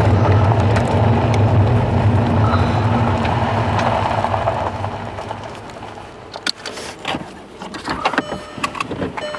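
A car driving on a gravel road, heard from inside the cabin: a steady engine and tyre hum that fades as the car slows to a stop about six seconds in. After that come scattered short clicks and knocks.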